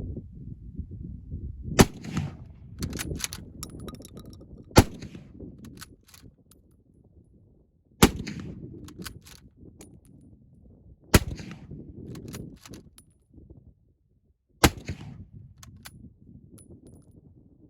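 Five rifle shots from a Mosin Nagant bolt-action rifle, 7.62×54R, fired about three seconds apart. Each sharp crack is followed by a trail of smaller clicks and knocks. Steady wind rumbles on the phone's microphone underneath.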